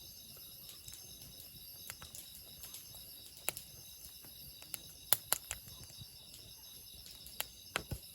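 Quiet outdoor ambience with faint steady high insect chirring and a scattered series of sharp clicks or taps, the loudest a pair about five seconds in.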